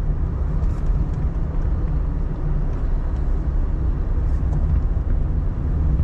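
Steady low rumble of a vehicle driving along a road: engine and road noise without letup.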